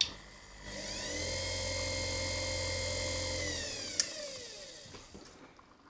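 Desktop leather edge burnishing machine's electric motor switched on and off: after a click, its whine rises for about a second, runs steady for a couple of seconds, then falls away as the motor coasts down, with a sharp click about four seconds in.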